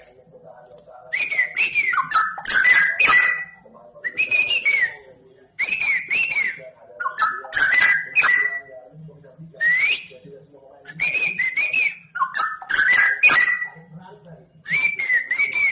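White-rumped shama (Medan murai batu) singing in short repeated phrases about every one and a half to two seconds, each mixing whistled notes with harsh, clicky 'batuk-batuk' (coughing) notes. This is the heated, full song of a bird that has been provoked.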